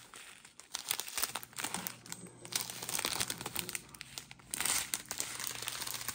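Strip of clear plastic diamond-painting drill bags crinkling as it is handled, in irregular surges.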